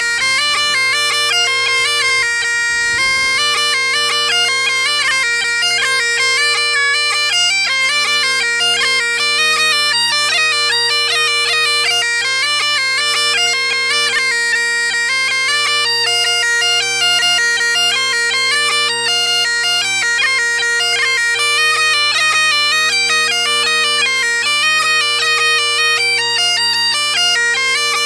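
Great Highland bagpipe played solo: the drones hold one steady low chord while the chanter plays a continuous melody above them.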